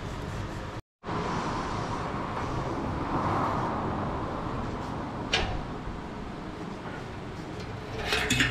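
Steady background hum and hiss of a workshop, with a single knock about five seconds in and brief scratchy rubbing on the stainless steel drum near the end.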